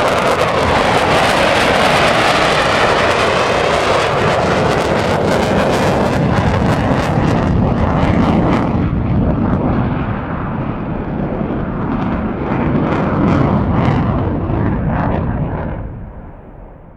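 Military fighter jet passing overhead on full afterburner: a loud, crackling roar whose sweeping tone falls in pitch as it goes by, fading away over the last second or so.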